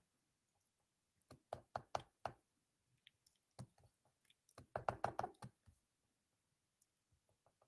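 Faint computer-keyboard clicks: a handful of separate keystrokes, then a quick run of them about five seconds in.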